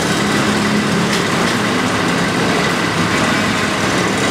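Steady street traffic noise, with a vehicle engine running nearby.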